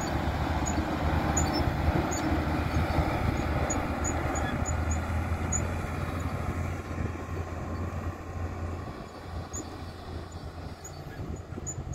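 Six-wheel dump truck's diesel engine running steadily as it drives away over dirt, a low drone that fades and drops away about nine seconds in.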